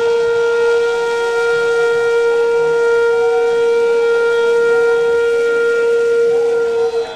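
Background instrumental music: one long held note, steady in pitch with rich overtones, which stops just before the end.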